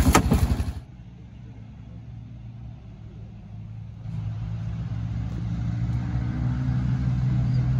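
A nearby engine running with a fast, even low pulse cuts off abruptly under a second in. A quieter, steady low engine hum follows and grows louder about four seconds in.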